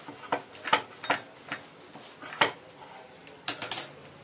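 A kitchen knife cutting through soft pav bread rolls on a wooden chopping board: a string of sharp knocks and crunches, the loudest about two and a half seconds in and a quick pair near the end.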